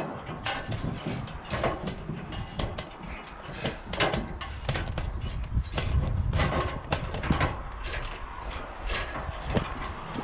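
Climbing an aluminium extension ladder: irregular knocks, clanks and scuffs of shoes and hands on the metal rungs, over a low rumble.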